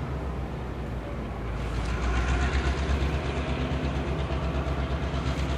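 B&O GP38 diesel-electric locomotive, an EMD two-stroke V16, running with its passenger cars on the rails. It makes a steady low rumble as the train moves off into the distance.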